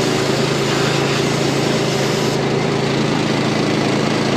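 Engine running steadily at idle, a low, even drone, with a thin high hiss over it that stops about halfway through.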